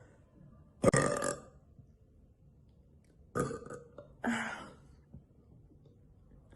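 A woman burping three times: one loud belch about a second in, then two more in quick succession a little past halfway.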